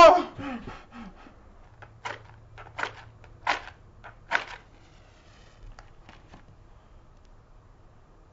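A person's short cry right at the start, falling in pitch over about a second, then four short scraping or clicking strokes about three-quarters of a second apart, with a faint low hum under them.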